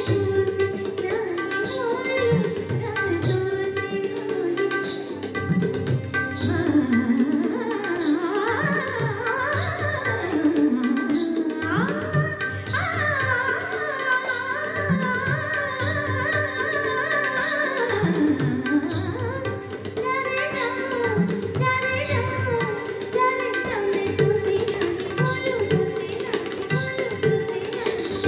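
Live Hindi film song: a woman sings into a microphone over electronic keyboard and tabla-style hand percussion, heard through the stage PA.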